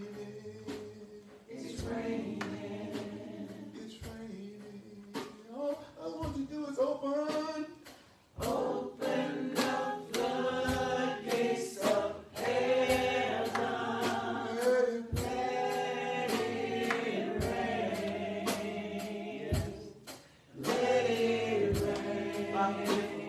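Gospel singing by a group of voices, with a regular beat of sharp strikes under it.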